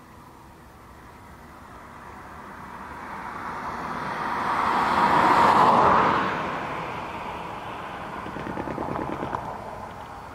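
A road vehicle passing close by, growing louder to a peak a little past halfway and then fading away, its pitch dropping as it goes past.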